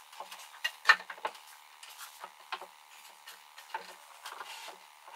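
Scattered light wooden knocks and clicks of pine boards being handled and set in place around a wooden tabletop, with one sharper knock about a second in.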